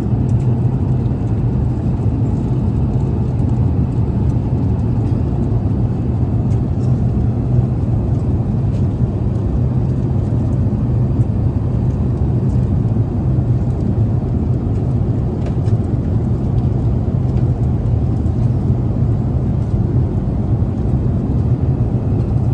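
Steady low rumble of engine and airflow noise inside the cabin of an Airbus A380 airliner in flight.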